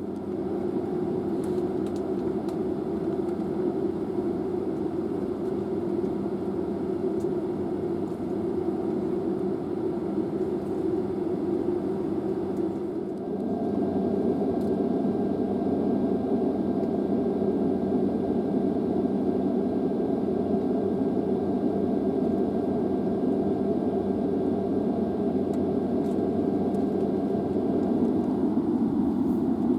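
Steady whirring hum and rush inside an airliner cabin parked on the ground, with the ventilation and aircraft systems running; it steps up louder about 13 seconds in.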